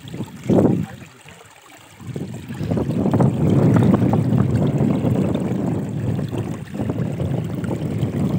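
Muddy tidal water rushing along a shallow channel across a mudflat, flowing strongly. There is a short louder burst about half a second in, a brief lull, then a steady rush.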